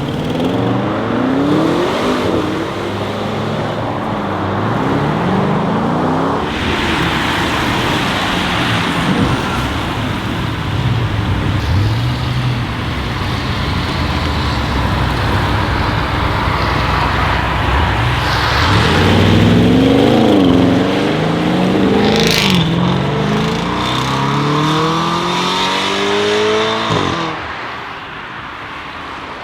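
Twin-turbo V8 of a Stage 2 Audi RS6 Avant C8 with catless downpipes and the particulate filter deleted, revving and accelerating hard, its pitch climbing and falling again and again, with a run of quick rev blips a little past the middle and a single sharp pop about two-thirds of the way in.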